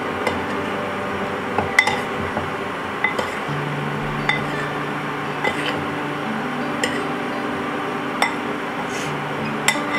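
A metal spoon clinking against a ceramic bowl as fish pieces are tossed in flour, a sharp clink about every second, over soft background music with held notes.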